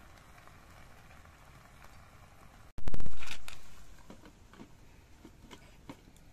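A sudden loud thump with a low rumble that dies away over about a second and a half, then a few light clicks as a glass pot lid is handled on a cooking pot over a wood fire.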